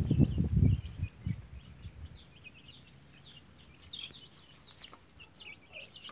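Small birds chirping, many short, high calls in quick succession. A loud low rumble fills the first second.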